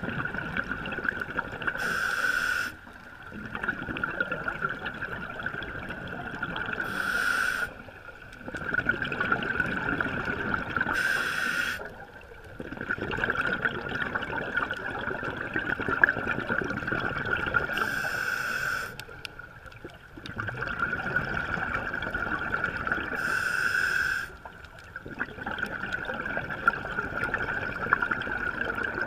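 Scuba diver breathing through a regulator underwater: about five breaths, each a short hiss followed by a longer stretch of bubbling exhalation.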